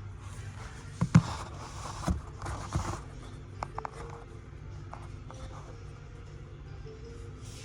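Rustling and scraping for the first few seconds with a few sharp knocks, the loudest about a second in, then scattered small clicks over a faint steady hum.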